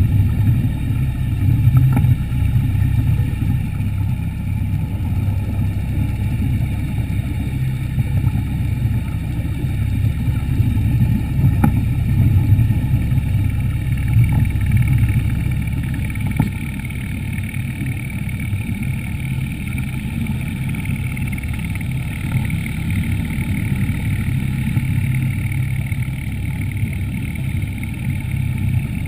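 Underwater scooter's motor and propeller running steadily underwater: a constant low drone with a faint higher whine above it.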